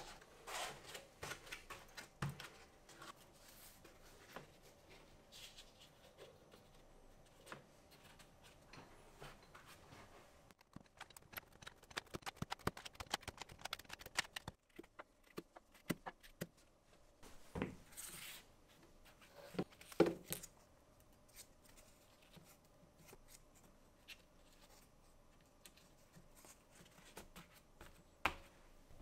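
Steel sockets and hand tools being set into a foam inlay in a sheet-metal socket-set case: scattered light clicks and taps, a fast run of clicks through the middle, and a few louder knocks in the second half.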